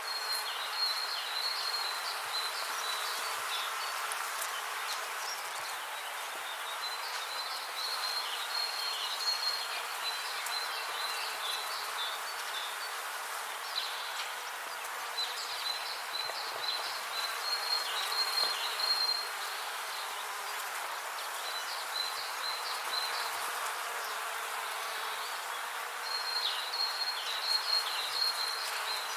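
Bees buzzing, a steady, even drone, with short phrases of high chirps coming back every few seconds.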